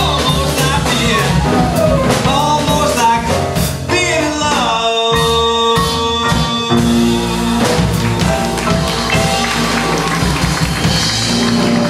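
Live jazz quartet playing a swing tune: male voice, piano, upright double bass and a Yamaha drum kit with cymbals. About four and a half seconds in the voice slides down into a note held for about two seconds.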